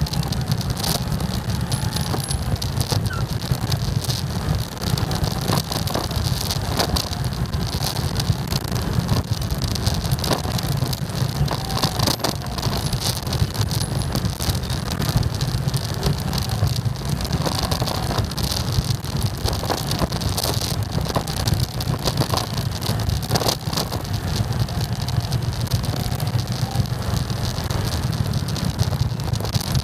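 Motorcycles and scooters moving slowly in dense city traffic: a steady low engine rumble from the riding motorcycle and the scooters packed around it.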